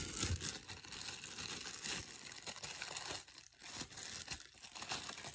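Clear plastic bag crinkling and crackling as it is handled and worked open.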